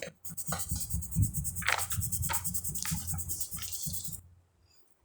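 Coloured pencil scratching over paper in quick back-and-forth strokes, with light knocks against the table beneath. It stops abruptly about four seconds in.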